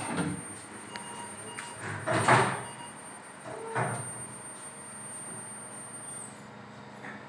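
Equipment being handled in a hospital ward: three short scraping, sliding bumps, the loudest about two seconds in. Under them a thin high whine runs steadily, then slides down in pitch about six seconds in.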